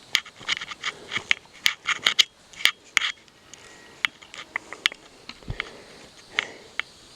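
A hiker's footsteps crunching and scraping on a rocky trail, quick and close together for about the first three seconds, then fewer and further apart.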